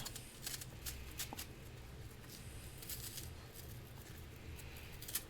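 Faint, irregular crunchy clicks of someone chewing a crisp, juicy Korean pear, over a low steady hum.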